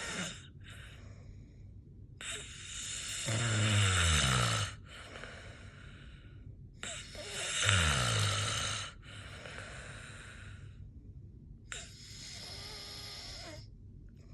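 Snoring: two loud snores, about four seconds apart, each with a deep buzz that drops in pitch, between quieter hissing breaths.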